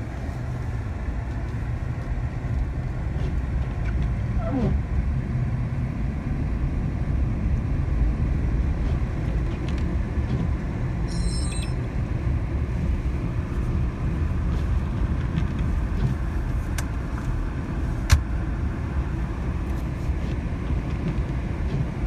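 GMC Sierra pickup driving on a snowy, partly iced road, heard from inside the cab: a steady low rumble of engine and tires. A single sharp click about eighteen seconds in.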